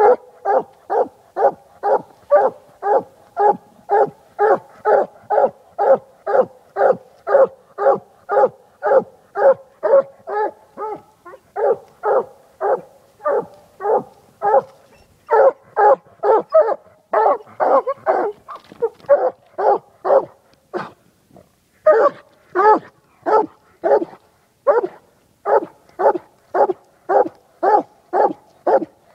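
Coonhound barking treed, standing up against the trunk, a steady chop of about three barks a second with one short break about two-thirds of the way through. It is the tree bark a hound gives once it has a raccoon up the tree.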